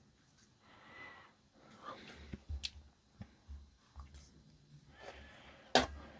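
Scattered light clicks and soft knocks of small parts being handled and set straight on a workbench, with one sharper click near the end.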